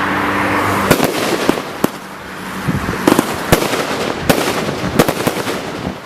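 Total FX Rogue firework firing: a rushing hiss in the first second, then a string of sharp bangs, roughly one a second, with crackling between them. It thins out toward the end.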